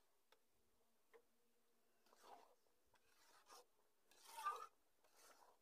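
Spatula stirring mango pickle pieces with sugar and jaggery in a pan: a few faint scraping strokes about once a second, the loudest a little past four seconds in.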